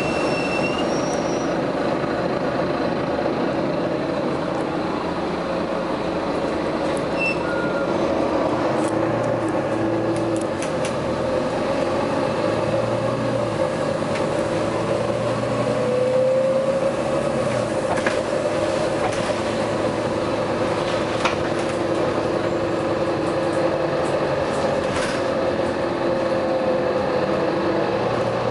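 A vehicle running steadily, with a constant drone and a few faint clicks.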